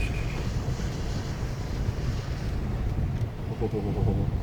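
Inside a 2008 Subaru Impreza WRX driving on a slushy dirt road: a steady low rumble of engine and tyres. A faint voice murmurs near the end.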